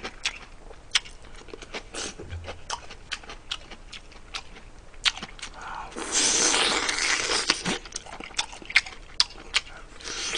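Close-miked eating sounds: a man chewing and gnawing braised pork ribs off the bone, his mouth making a steady run of wet smacking clicks. About six seconds in comes one longer noisy rush of air at the mouth, lasting a second or so.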